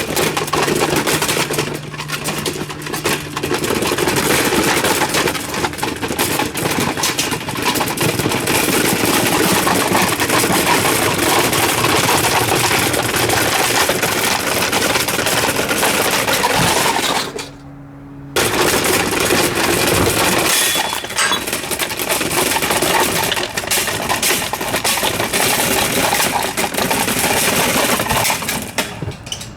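Vintage Super Deluxe table fan being destroyed: a dense, continuous clatter and rattle of plastic and metal parts. It breaks off for about a second roughly two-thirds of the way through, leaving only the steady hum of the fan motor.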